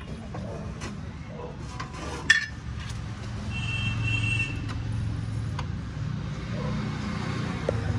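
Metal clinks of hand tools working on a motorcycle's front chain sprocket, with one sharp clank a little over two seconds in, over a steady low hum. A brief high tone sounds near the middle.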